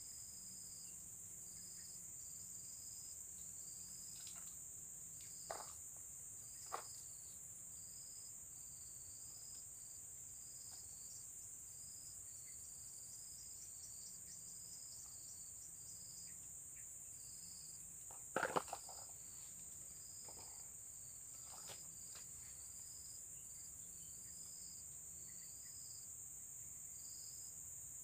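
Steady chorus of insects: a constant high shrill drone with a shorter chirp repeating about once a second. A few sharp clicks or taps come through, the loudest a quick cluster of them about eighteen seconds in.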